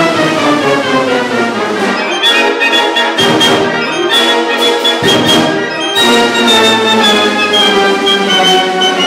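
Orchestral background music led by brass instruments, playing held chords that change every second or so.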